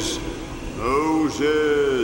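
A man's voice calling out "Moses!" slowly in two long, drawn-out syllables, over a soft steady musical drone.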